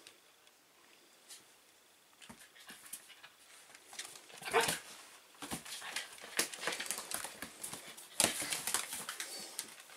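Shetland sheepdogs playing: short dog vocal noises and scuffling, starting about two seconds in and getting busier from about halfway, with the loudest outbursts near the middle and near the end.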